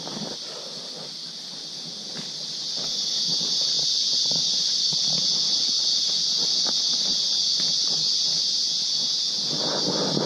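Forest insects buzzing in one steady, loud, high-pitched drone that swells louder about three seconds in. Soft footsteps and rustling run underneath, with a burst of louder handling noise near the end.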